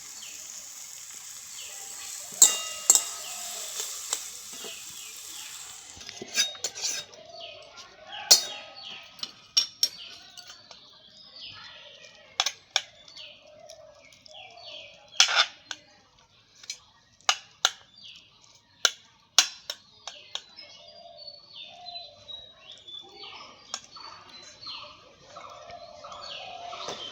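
Curry sizzling in the pan for about the first six seconds, then stopping. After that a metal spoon clinks and knocks against the pot many times, with birds calling in short, falling chirps in the background.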